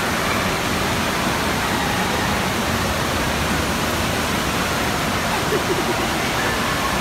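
Steady rushing-water noise of an indoor waterpark, with faint distant voices in it.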